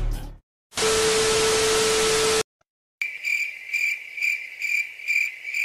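TV-static hiss with a steady test tone for about a second and a half, then cut off. After a short silence, a cricket chirps steadily at about three chirps a second, used as the awkward-silence sound effect.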